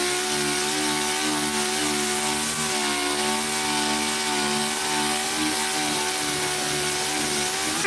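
Dual-action (DA) sander running steadily while sanding body filler on a car body panel, a whirring hum with a strong hiss. It shuts off at the very end and winds down in pitch.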